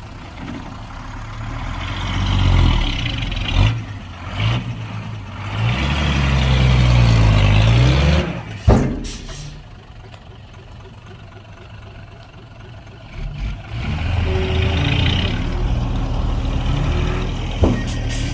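Heavy diesel engines of earthmoving machinery running, with the revs rising and falling about six to eight seconds in. A sharp clank and a short hiss come at about nine seconds; then it drops back and runs louder again from about fourteen seconds.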